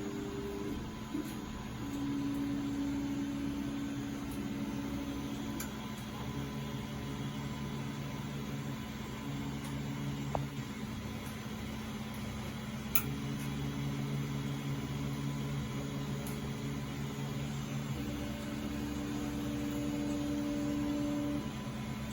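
3D printer's stepper motors whining in steady low tones that start, change pitch and stop every few seconds as the print head moves through its bed-levelling check. Underneath is the steady hum of its cooling fans, with a couple of brief clicks.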